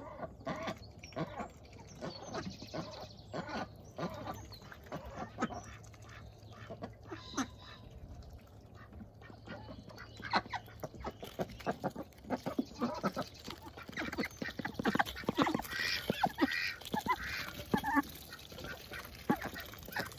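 Domestic ducks quacking and chattering in short calls, mixed with small taps and clicks. The calls grow busier and louder about halfway through as more ducks crowd in.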